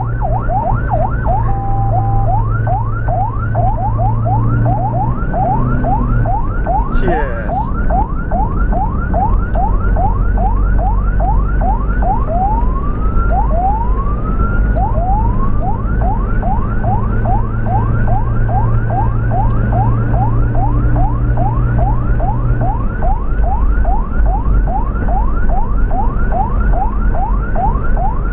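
Ambulance siren in fast yelp mode, quick rising sweeps about three a second, slowing to a few longer sweeps around the middle. Under it runs steady engine and road rumble.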